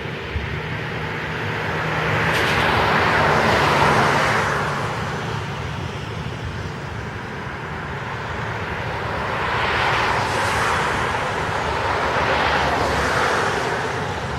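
Vehicles passing on a wet road during a thunderstorm: tyre hiss swells and fades twice, the first pass about two seconds in and the second from about nine seconds, over a steady background of rain and traffic.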